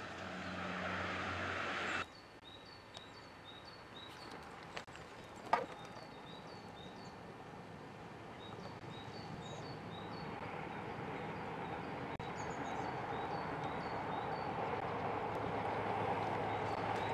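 A train crossing a viaduct: a steady rumble that starts about a third of the way in and grows louder toward the end as it approaches. A bird chirps repeatedly over it. Before that, a different steady hum cuts off abruptly about two seconds in.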